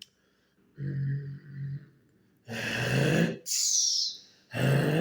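A man making wordless mouth sounds: a short hum, then several loud breathy, hissing blasts, one with a high falling whistle.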